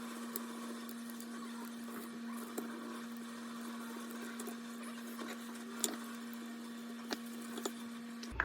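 A steady low hum under a faint even hiss, with a few scattered small clicks.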